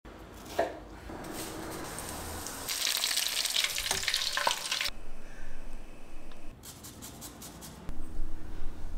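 Panko-breaded fish pieces sizzling as they deep-fry in hot oil, loudest in the middle of the stretch. A single knock of a knife on a wooden cutting board comes near the start, and short clicks follow near the end.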